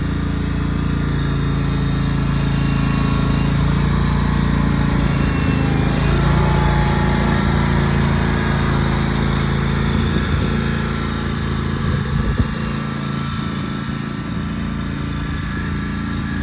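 Riding lawn mower engine running steadily with an even drone. Its deepest rumble thins out about twelve seconds in.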